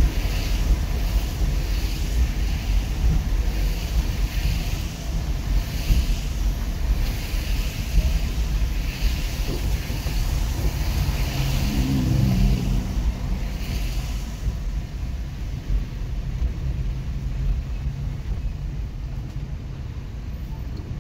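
Car moving in slow traffic on a wet road, heard from inside the cabin: steady low engine and road rumble, with a soft swish repeating a little faster than once a second that stops about two-thirds of the way through.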